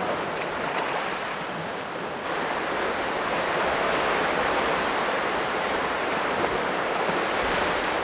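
Sea surf washing and breaking over the rocks of a rocky shoreline: a steady rushing of waves that grows fuller about two seconds in.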